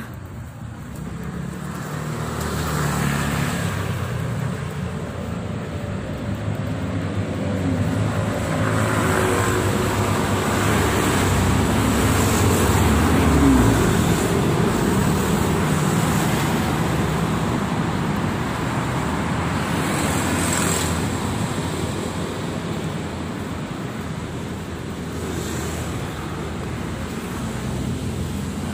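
Road traffic on a city street: motor scooters and cars passing close by, a steady engine and tyre noise that is loudest as scooters go by about halfway through.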